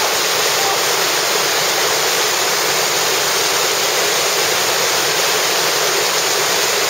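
Whitewater river rapid rushing: a steady, unbroken hiss of churning water.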